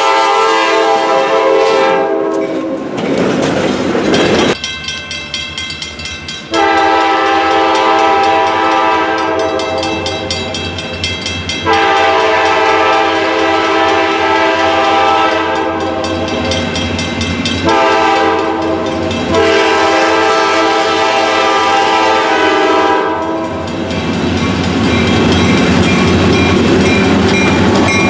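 Diesel freight locomotive's chord air horn blowing several long blasts, then the long-long-short-long grade-crossing signal as the train approaches a crossing. Near the end the lead locomotives pass close by, their diesel engines and wheels rumbling.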